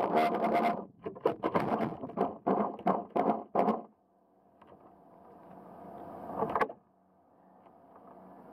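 Electric propeller motors of a Waverunner Mark 3 bait boat, picked up through the water by an underwater camera under the hull: a steady whirr that breaks into a string of short bursts as the motors are pulsed, then stops about four seconds in. A faint hum and a single click follow.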